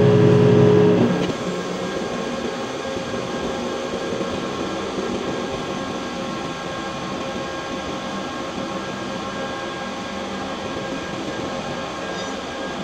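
Steady background din of a large heavy-machining workshop: an even rush of machinery noise with faint steady hums underneath. A louder, deeper hum made of several tones cuts off about a second in.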